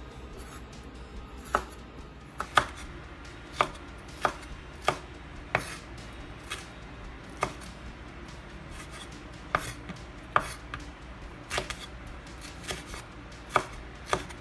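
Broad-bladed kitchen knife slicing bell peppers on a wooden cutting board: sharp knocks of the blade striking the board at an uneven pace, about one to two a second, starting about a second and a half in.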